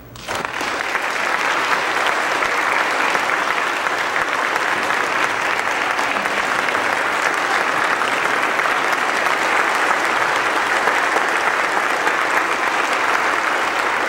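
A congregation applauding: many people clapping together, swelling within the first second and then holding steady.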